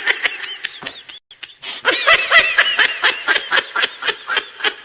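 High-pitched giggling laughter in quick repeated pulses, in two runs with a short break just over a second in.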